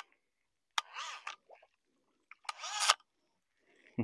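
Martin Mohawk antique automatic fly reel's spring retrieve whirring as it winds in line on a hooked fish: two short bursts, each starting with a click, about a second in and near the end, the second growing louder and stopping abruptly.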